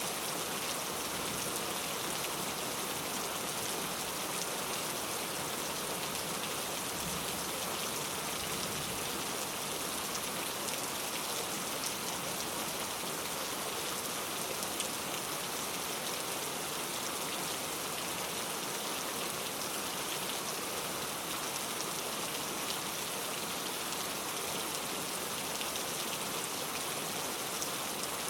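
Steady rain falling on a surface, a dense even hiss with faint individual drop ticks scattered through it.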